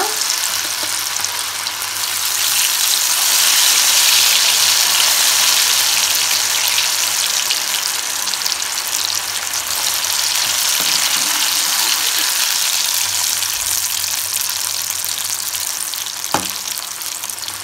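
Masala-coated elephant foot yam pieces sizzling as they deep-fry in hot oil in a metal kadai, the sizzle loudest a few seconds in. Near the end a single sharp knock as the metal slotted spoon touches the pan.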